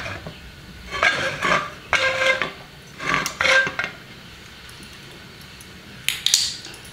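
Nonstick frying pan scraping and clanking on the metal pan support of a gas stove burner, in three short bursts with a ringing metallic edge, then a sharp clink about six seconds in.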